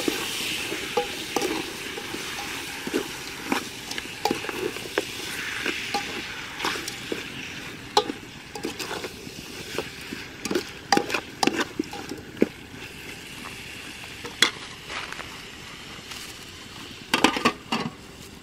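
Squirrel meat sizzling in oil in an aluminium pot while it is stirred with a plastic spatula, which scrapes and knocks against the pot at irregular moments. Near the end a cluster of louder clatters as the lid goes on the pot.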